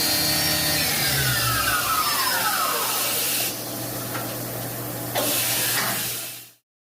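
1997 Fadal 4020 CNC vertical mill's spindle running, then winding down with a falling whine starting about a second in, leaving a steady hum from the machine. The sound cuts off abruptly near the end.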